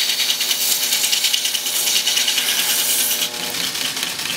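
Burr King belt grinder running, with a mock blade held against the moving abrasive belt and rubbing on it with a steady hiss over the motor's hum. The grinding hiss eases about three seconds in as the blade is lifted off the belt.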